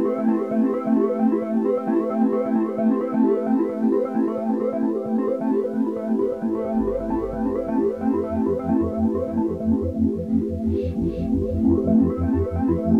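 Background music: a quick, busy melody of rapidly changing notes, joined about halfway through by a low pulsing bass beat.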